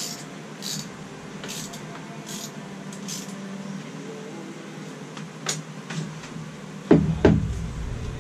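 Phillips screwdriver driving the long bolt into a miter saw's carry handle, with a short scraping tick at each turn, roughly one every half to one second. About seven seconds in, two heavy knocks follow in quick succession.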